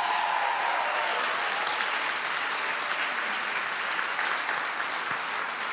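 A congregation applauding, steady clapping that eases off slightly near the end.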